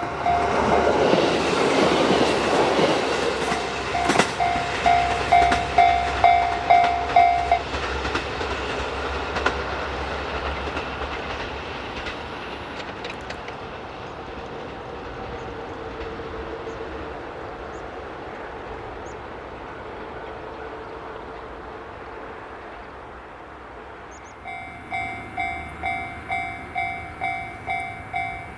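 JR Kyushu KiHa 125 diesel railcar passing over a level crossing while the crossing's electronic warning bell rings at about two strikes a second. The bell stops about eight seconds in and the railcar's sound fades as it moves away. Near the end the crossing bell starts ringing again.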